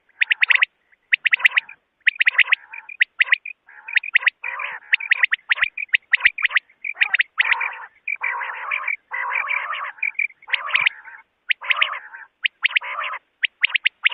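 Common quail calling over and over in quick succession: sharp, clipped notes alternate with longer, harsher buzzy calls. It is a recorded quail call of the kind played to lure quail.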